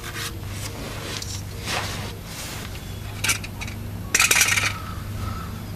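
Metal parts clinking and scraping as they are handled during a differential cover gasket install, with the loudest clatter about four seconds in.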